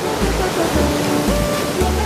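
Background music with a bass note about twice a second and short melody notes, over a steady rushing hiss.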